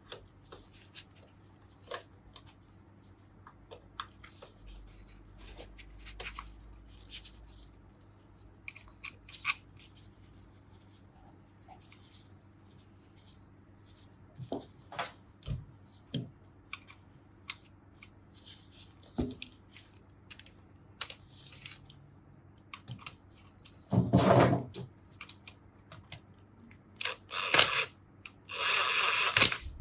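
Scattered clicks, taps and clinks of hand tools and metal parts being handled during engine reassembly, with a louder noisy burst about three quarters of the way through and several more near the end.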